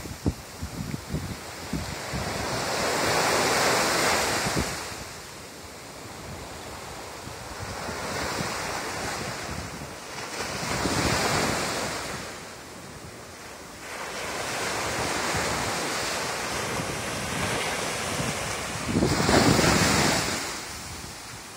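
Small surf waves breaking and washing up a sand beach, swelling and fading in three surges about eight seconds apart, with wind buffeting the microphone.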